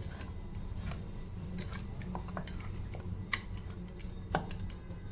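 Chicken pieces being mixed through a thick yogurt-and-spice marinade: soft wet squelching with scattered small clicks against the bowl, over a steady low hum.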